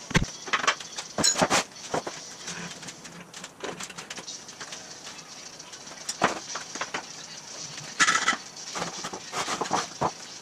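Steel engine stand carrying a bare V8 engine block, rolled over a concrete floor, its casters and frame rattling and clanking in irregular knocks.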